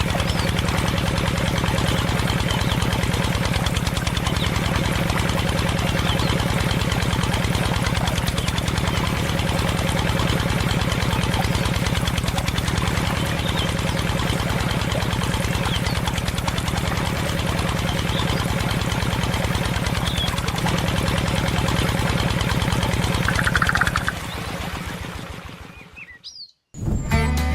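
Small engine of a homemade mini tractor running steadily, with a few bird chirps faintly over it. The engine sound fades away about 24 seconds in.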